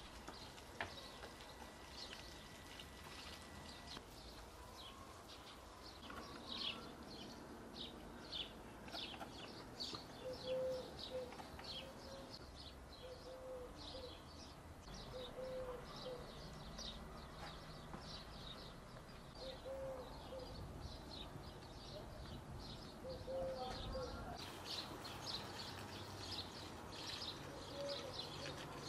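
Small birds chirping in quick short calls throughout, with a dove's low coo repeating every few seconds.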